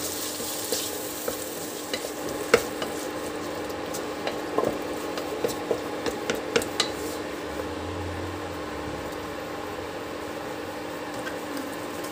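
Chopped tomatoes sizzling in oil in a pan, stirred with a spatula that knocks and scrapes against the pan through the first seven seconds or so, then a steadier sizzle with a faint steady hum underneath.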